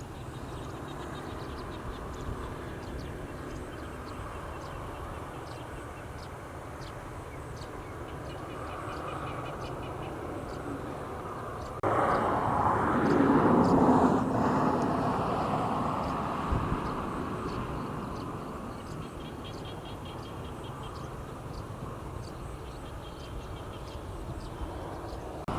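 Rural evening outdoor ambience: a steady low background with faint, regularly repeated high chirps. About twelve seconds in, a much louder rushing sound starts suddenly, peaks a couple of seconds later, then fades away over several seconds.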